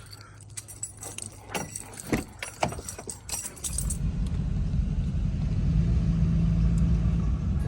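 Keys jangling with small clicks and rattles, then about halfway through a vehicle's engine comes in with a steady low rumble.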